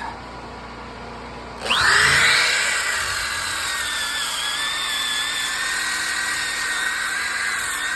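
Electric power sander starting up about two seconds in, its motor whine climbing fast and then settling into a steady high whine that wavers a little as it sands a log wall.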